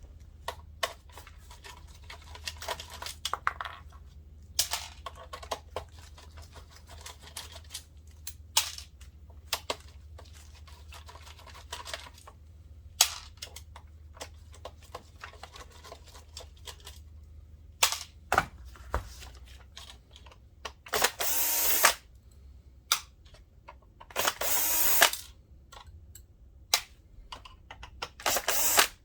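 Clicks and taps of tools and screws being handled while fasteners are removed from a projector's back panel, then three short runs of an electric screwdriver, each about a second long, in the last third.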